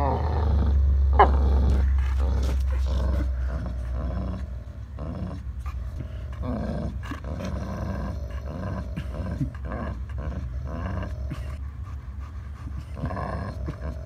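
German Shepherd and pit bull growling while they tug on one shared rubber toy: low, wavering growls come again and again, with a heavy low rumble in the first few seconds. The growling is possessive play-guarding of the toy, neither dog willing to let it go.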